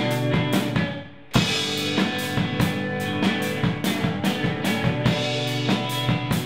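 A rock band playing live: electric guitar and drum kit. About a second in the band stops briefly, then comes back in together on a loud hit and plays on.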